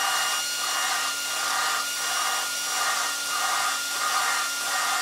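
A drill spinning a Mazda BP valve against its seat through a rubber hose during valve lapping. The coarse lapping compound gives a gritty scraping over the drill motor's steady whine. The grit swells and eases about three times every two seconds as the pressure is pulsed to spread the compound evenly.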